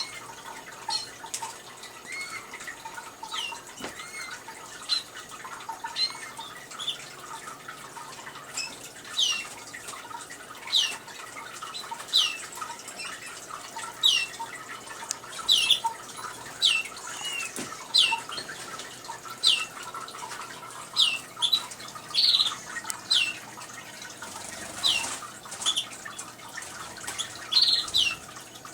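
Small cage birds, canaries and finches, chirping: short high calls that sweep downward, coming about once a second and thickening in the middle. Beneath them runs the steady trickle of a small indoor water fountain.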